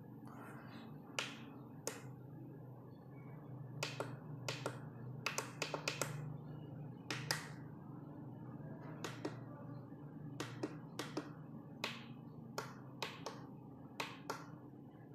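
Plastic buttons on a Flysky FS-TH9X radio transmitter clicking as they are pressed to step through the menus: irregular single clicks and quick pairs.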